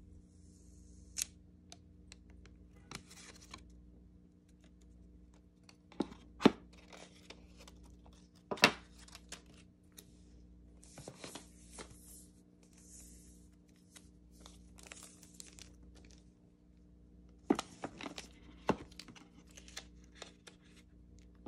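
Plastic wrap and protective film being peeled and paper packaging rustled by hand, with several sharp clicks and knocks of nails and items on plastic and cardboard; the loudest knocks come about six and a half and nine seconds in.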